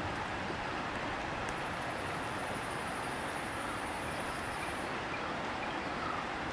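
Steady rush of river water flowing over rocks. A high-pitched, rapidly pulsing trill joins in about one and a half seconds in and stops about five seconds in.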